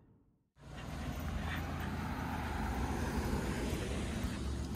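A steady rushing noise with a low rumble, starting abruptly about half a second in after a moment of silence.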